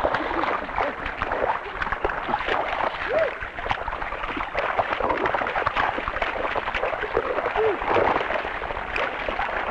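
Field sound of a flooded rice paddy being ploughed with water buffalo. Mud and water splash and slosh continually, and voices call out a few short rising-and-falling calls now and then.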